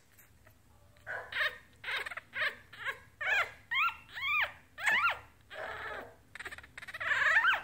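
A one-week-old Yorkshire terrier puppy squeaking and whimpering. After about a second it gives a run of short, high calls about two a second, several rising and then falling in pitch, with a longer call near the end.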